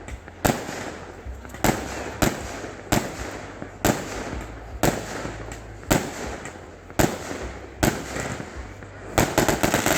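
Aerial firework shells bursting overhead, a loud bang roughly every second, each trailing off. Near the end comes a quick run of crackling pops.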